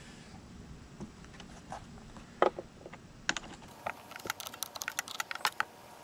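Plastic clicks and knocks from a Milwaukee M18 cordless chainsaw being handled as its battery pack is taken out, with one sharp click about two and a half seconds in, then a quick run of light clicks in the second half.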